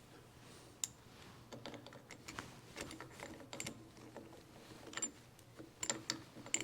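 Light, irregular metallic clicks and taps of steel parts being handled and seated by hand in a 1914 Chevrolet steering gear box, over a faint steady low hum.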